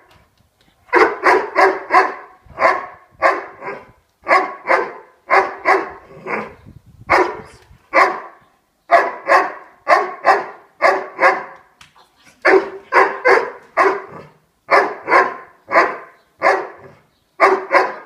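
A Doberman barking loudly and over and over, in quick runs of two to four sharp barks, with short pauses between them. It is barking at a ball on command while holding position at its handler's leg.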